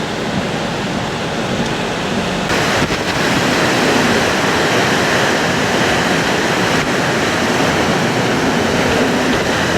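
Hurricane wind roaring steadily across the microphone. It turns louder and hissier about two and a half seconds in.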